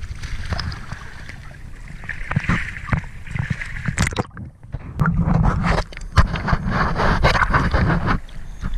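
Choppy lake water sloshing and splashing over an action camera held at the waterline, with a low rumble and irregular knocks as waves hit it. It is busiest from about five seconds in.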